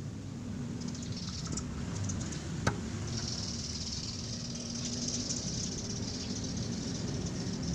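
Workshop background with a steady low hum, a single sharp knock about a third of the way in, and a stretch of soft high hiss in the middle.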